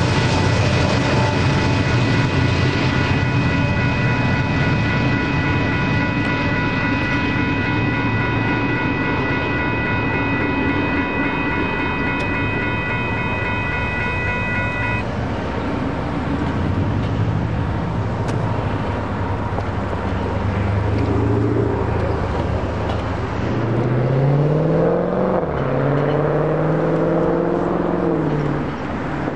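Two electronic railroad crossing bells, a WCH Type 1.5 e-bell and an NEG e-bell, ringing together as steady overlapping tones over the low rumble of the departing freight train, then cutting off suddenly about halfway through as the gates lift. Road traffic follows, and near the end a vehicle engine rises and falls in pitch as it pulls away.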